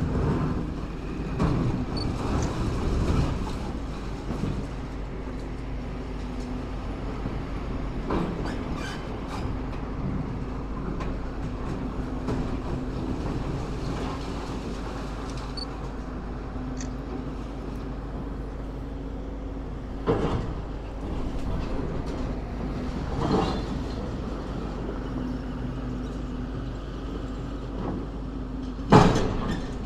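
Diesel engine of a demolition excavator running steadily, with intermittent clanks and knocks of rubble being handled, the loudest just before the end.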